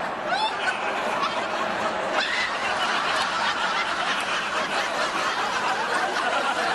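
Several people laughing and chuckling together.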